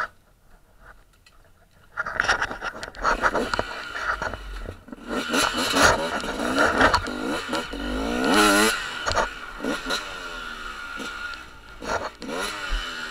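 Dirt bike engines running and revving, coming in suddenly about two seconds in after a quieter start, their pitch repeatedly rising and falling; the loudest rev comes a little past the middle.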